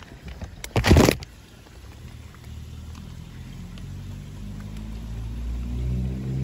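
A plastic fish bag crinkling and rustling sharply for about half a second, about a second in, as the bag of koi is handled at the pond edge. A low hum then builds, and background music fades in near the end.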